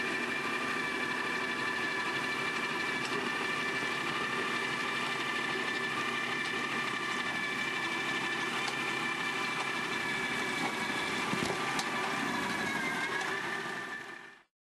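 Tractor engine running under load while it drives a tractor-mounted Valentini FR rotary tiller through the soil: a steady mechanical drone with a high whine over it. The whine sags briefly in pitch near the end, and then the sound fades out quickly.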